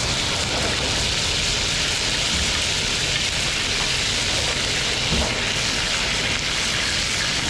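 Steady hissing sizzle of food frying in a pan over a high gas flame.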